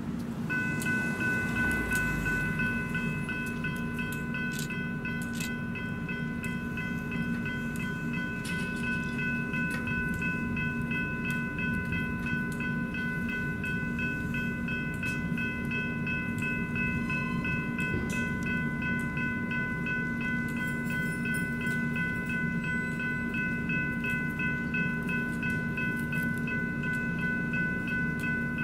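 General Signals electronic crossing bells (E-bells) at a railway level crossing start ringing about half a second in and keep ringing steadily, the crossing's warning that a train is approaching.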